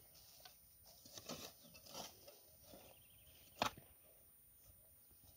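Faint rustling and scraping of a hoe working soil and weeds, with a few soft knocks and one sharp knock about three and a half seconds in.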